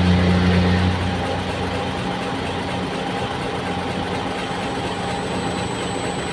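Heavy diesel machinery running steadily: a loud low hum dies away about a second in, leaving a steady engine drone.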